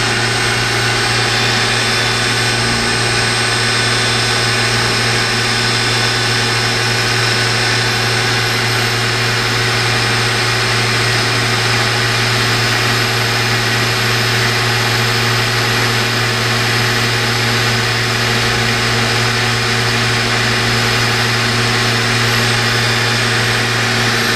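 Citizen M16 CNC Swiss-type lathe running: a steady machine hum with several held tones over a broad whir, holding the same level throughout.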